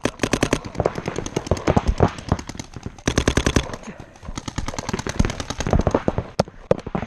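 Paintball guns firing in rapid strings of sharp pops, shot after shot throughout, densest a little past three seconds in.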